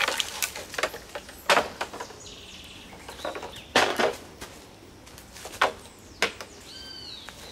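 A series of separate knocks and clunks, like wood and tools being handled, about eight in all. Near the end a bird gives a few short arched chirps.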